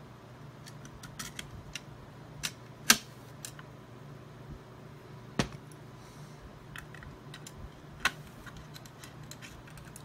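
Scattered light clicks and taps of a metal backplate being handled and set onto a graphics card, the sharpest click about three seconds in. A low steady hum runs underneath.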